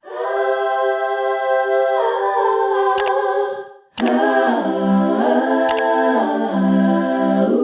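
Voices singing without accompaniment in two long held phrases. The first is higher and steps down about two seconds in; the second starts about four seconds in, lower, and rises and falls in pitch.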